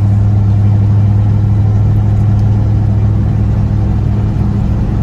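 1979 Corvette's 350 L48 V8 with Flowmaster exhaust running at a steady pitch, heard from inside the cabin.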